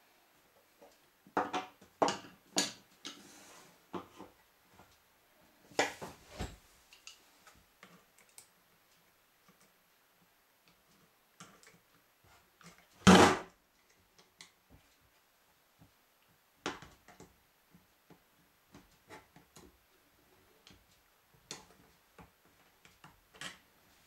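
Small metal clicks and scrapes of a tool working a retaining ring onto a meat grinder's drive-gear shaft against a steel washer, with one loud sharp click about halfway through.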